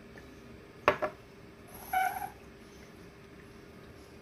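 A sharp double knock, a small ceramic vase set down on a stone countertop, about a second in. About a second later a cat meows once, briefly.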